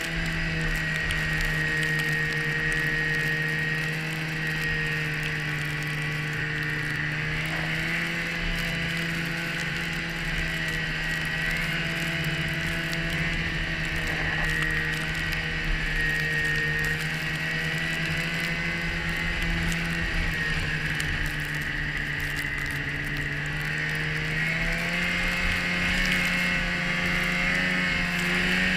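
Polaris 550 fan-cooled two-stroke twin snowmobile engine running at a steady cruise, with a high whine from the drive alongside it. The engine pitch holds level, then climbs over the last few seconds as the sled speeds up.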